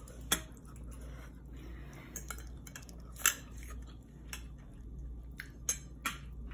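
Metal utensils clinking against dishes: a spoon and a ladle striking a plate and a stainless steel pot, five or six scattered sharp clinks, the loudest about three seconds in, over a low steady hum.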